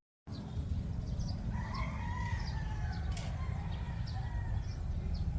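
A rooster crowing once, one long, slightly falling call starting about a second and a half in, with small birds chirping over a steady low background noise.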